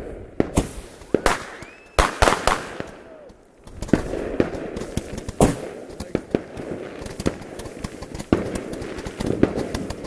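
Fireworks going off: a string of loud, sharp bangs at irregular intervals, with a denser rattle of smaller crackling pops from about four seconds in.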